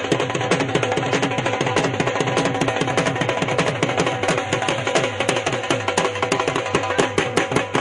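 Music driven by rapid, dense hand-drum strokes whose low tones fall in pitch, with steady held tones above.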